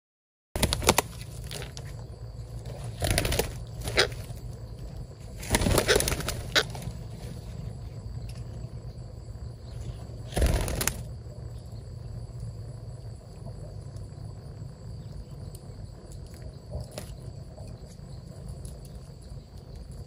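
Parrots' wings flapping in several short bursts, mostly in the first half, the last about ten seconds in, over a steady low rumble.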